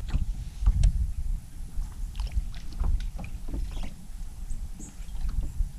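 Small aluminum fishing boat drifting on a lake: a low, uneven rumble of wind and water against the hull, with scattered light knocks and clicks.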